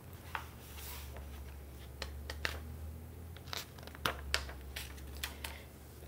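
Pages of a hardcover picture book being turned and handled: soft paper rustles and light clicks scattered through, over a low steady hum.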